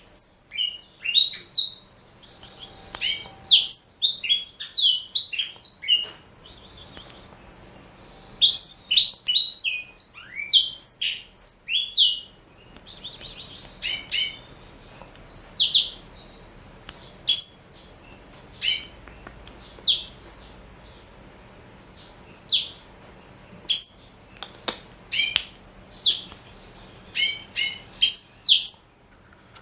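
Male black-throated canary singing: fast runs of short, high chirping notes in bursts of a few seconds in the first half, then spaced-out single notes and short phrases.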